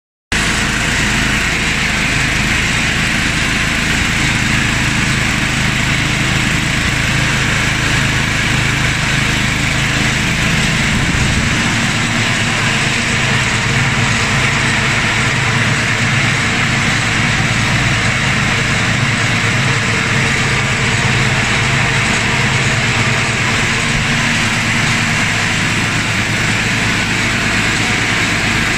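17.5 hp small gasoline engine running steadily, driving a belt-and-pulley drive that spins the auger of a 27-inch Noma snowblower head.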